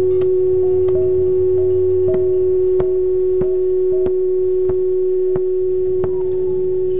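Electronic music: a steady held pure tone with a weaker tone just above it, cut across by sharp clicks about twice a second, most paired with a short higher blip.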